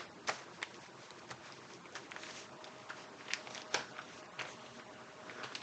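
Linear rails in plastic bags being slid and laid out by hand on a wooden bench: faint plastic rustling with light clicks and taps now and then.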